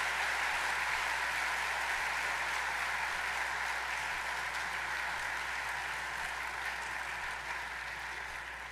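Audience applauding: a steady, even clatter of many hands that slowly dies away near the end.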